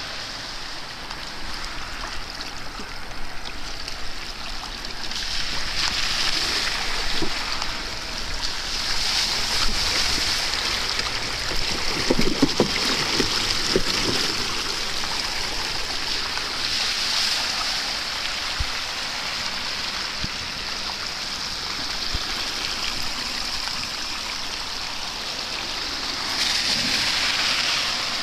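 Floodwater rushing and splashing into a street storm drain that has just been cleared of a leaf blockage, a steady watery noise that swells and eases several times.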